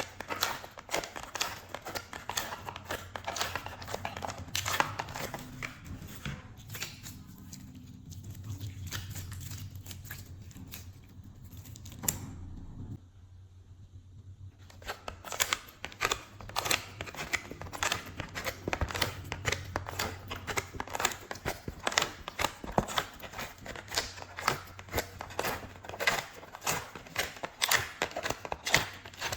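Glossy slime being squished, stretched and folded by hand, making dense sticky crackles and pops. The crackling thins out around the middle and stops briefly before picking up again.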